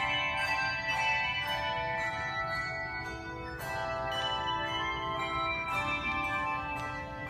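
Handbell choir playing: chords of struck handbells, several notes at once, each chord ringing on and overlapping the next.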